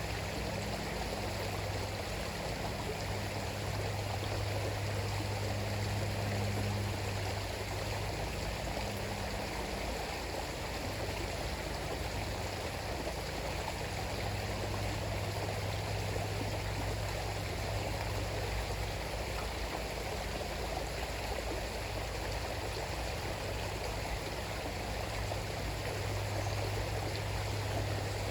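River water flowing steadily over its bed, a continuous rushing with a deep low rumble underneath that swells and eases.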